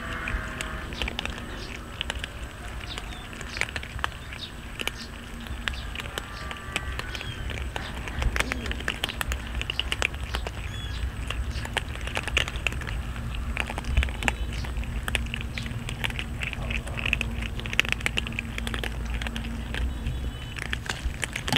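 A group of cats crunching dry kibble off concrete: many quick, irregular crunches and clicks overlapping, with some pieces louder than others.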